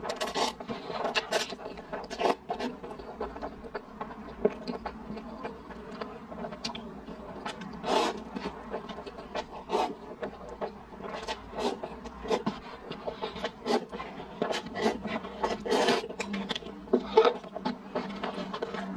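A person slurping instant noodles and chewing them wetly, with many short irregular mouth smacks and clicks, close to a clip-on microphone.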